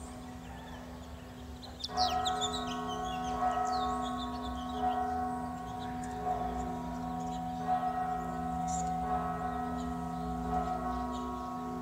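A church bell tolled over and over, starting about two seconds in at roughly one stroke every second and a half, each stroke ringing on into the next. Birds chirp over the first few strokes.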